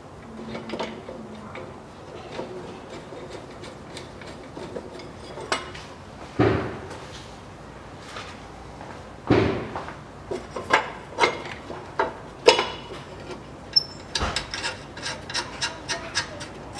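Metal clinks, scrapes and knocks of an exhaust front pipe being fitted to its flange studs and nuts started by hand. Two heavier thumps come about six and nine seconds in, then a quick run of sharp clicks.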